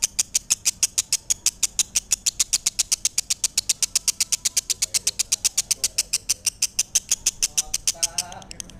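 Lovebird singing a long, unbroken run of sharp, high-pitched chirps, repeated evenly about eight times a second. The run fades near the end.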